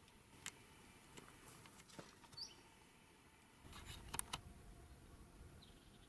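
Near silence: faint outdoor ambience with a few soft clicks, one brief high chirp just before halfway, and a low rumble that comes in a little past halfway.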